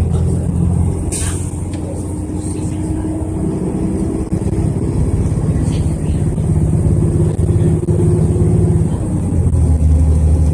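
Transit bus engine running, heard from inside the passenger cabin: a steady low drone with a higher whine over it, and a sharp knock about a second in. Near the end the engine note drops lower and gets louder.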